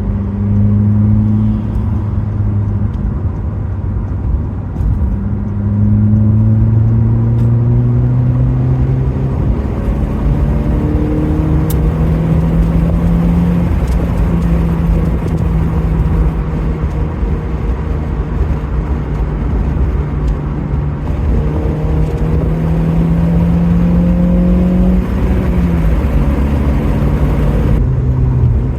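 Car engine running while driving, its pitch climbing slowly and stepping back down a few times, over steady road noise.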